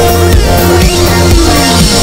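Background music: an electronic hip-hop beat with heavy bass and a falling synth sweep near the end, between rapped verses.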